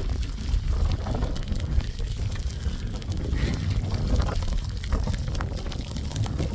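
Wind buffeting the microphone in a mountain snowstorm, a heavy steady rumble with a scattered crackle of small ticks over it.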